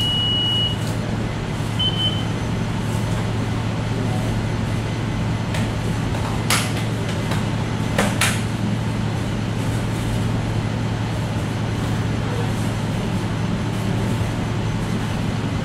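A steady low hum with a noisy wash under it. Over it a manual defibrillator's high, steady tone stops just under a second in, a short beep follows about two seconds in, and two sharp clicks come near the middle as the unit's controls are handled.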